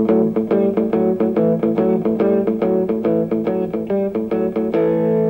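Electric guitar, a Fender Stratocaster, playing the familiar rock and roll riff in A: two-note chords that move the fifth to the sixth and the flattened seventh against the root, picked as a fast, even run of short chords. Near the end it lands on one chord and lets it ring.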